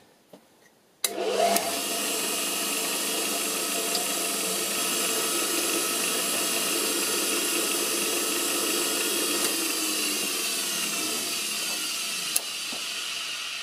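A surface grinder starts about a second in, and its wheel runs steadily with a whine of several tones while two steel tool-post piston plates on the magnetic chuck are ground down a little more. Near the end the pitch falls, and after a click the machine winds down.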